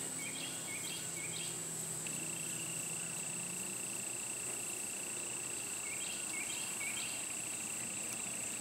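Evening insect chorus: a steady, high-pitched trill. A second, lower steady trill joins about two seconds in. Short chirps come in twos or threes near the start and again about two-thirds of the way through.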